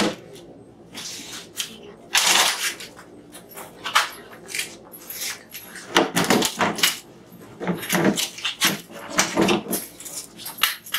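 Green webbed folding lawn chairs being picked up and moved, with a string of clattering knocks, scrapes and rustling.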